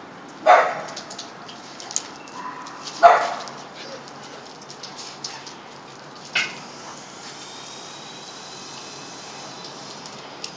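Dogs at play barking: three short, loud barks, about half a second, three seconds and six and a half seconds in.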